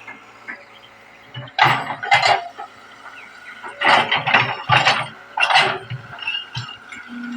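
Excavator clanking: about six sharp metal clatters in clusters, starting about a second and a half in, over a faint steady low engine hum.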